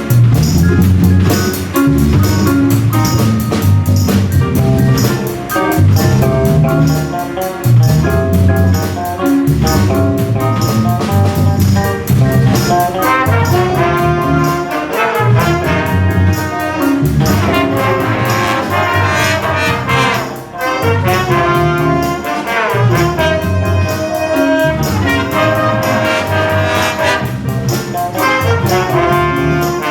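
Jazz big band playing a groove-based funk chart: trumpets, trombones and saxophones play riffs over a steady drum-kit and bass beat, and the horn lines thicken about halfway through.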